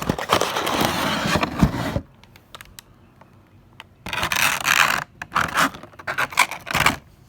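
Cardboard and plastic toy packaging being handled, scraping and rustling as a small model is worked out of its box. It comes in a spell of about two seconds, a pause, then several shorter scrapes.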